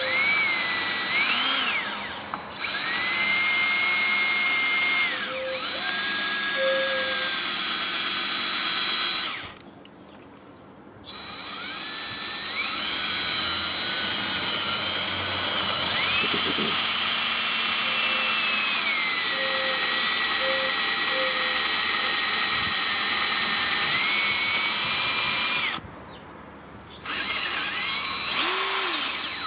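Electric drill with a metal bit drilling out a stripped, snapped cylinder head bolt, its motor whine rising and settling as the trigger is worked. It runs in long stretches, stopping briefly about a third of the way in and again near the end.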